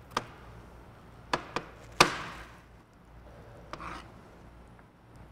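Kitchen knife knocking on a cutting board in a few irregular chops, the loudest about two seconds in.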